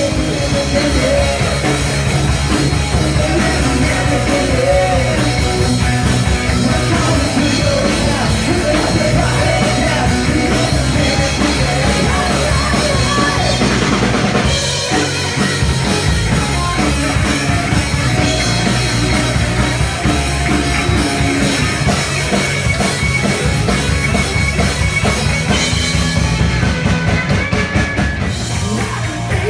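Rock band playing live and loud: drum kit, bass guitar and electric guitar together.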